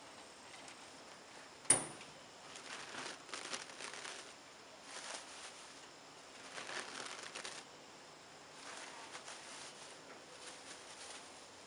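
Plastic bag crinkling and rustling in bouts, with the papery nest material crumbling and tearing, as pieces of a bald-faced hornet nest are broken off into the bag. A single sharp click about two seconds in is the loudest sound.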